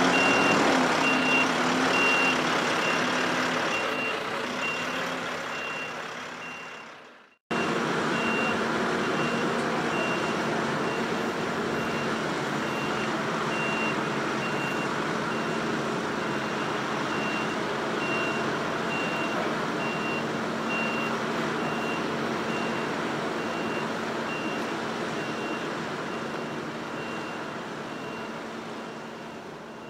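Heavy-haulage truck's diesel engine running, with a reversing alarm beeping over and over. The sound fades and breaks off briefly about seven seconds in, then comes back with the engine hum steadier under the beeps.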